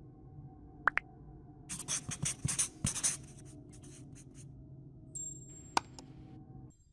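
Marker pen scratching across a whiteboard in a quick run of strokes about two seconds in, with a couple of sharp clicks before and after over a faint steady hum.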